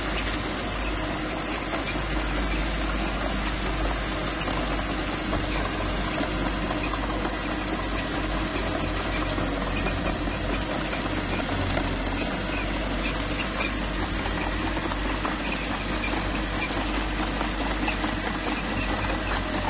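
Small crawler bulldozer working: its diesel engine runs steadily, with short high squeaks from the machine mixed in.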